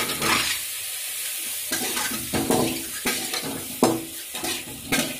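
Boiled eggs sizzling as they fry in hot oil in a metal kadai, with sharp scrapes and knocks against the pan several times as the eggs go in and are turned with a metal spatula.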